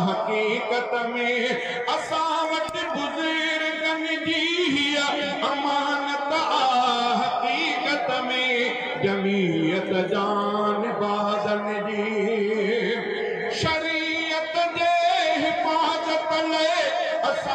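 A man chanting a Sindhi nazm (religious-political poem) to a melodic tune, holding long, wavering notes, his voice amplified through a microphone and public-address system.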